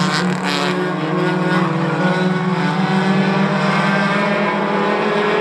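A small pack of four-cylinder compact race cars running together on the track, their engines making a steady, loud drone that rises a little in pitch near the end.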